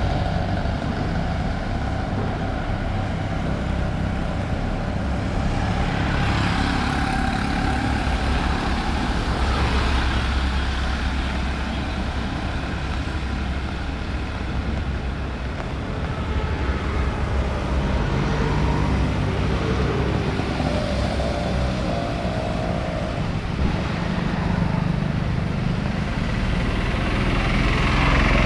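City road traffic on a wet street: engines running steadily, with vehicles passing close and swelling louder, three times over.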